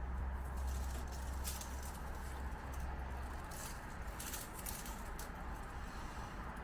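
Road traffic noise: a steady hiss with a low rumble that eases off after a couple of seconds, with short high-pitched squeaks or chirps scattered over it.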